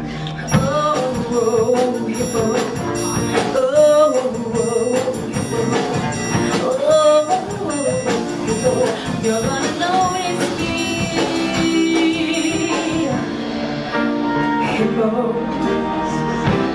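A woman singing a show tune with instrumental accompaniment.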